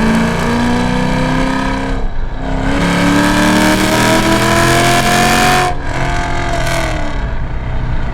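Cammed Chevy SS's 6.2-litre LS3 V8, with an aftermarket Livernois camshaft and long-tube headers, accelerating hard: the exhaust note climbs in pitch, breaks briefly about two seconds in for a gear change, then climbs again in a longer pull. It drops off abruptly near six seconds as the throttle is lifted, and runs on at a lower, easing pitch.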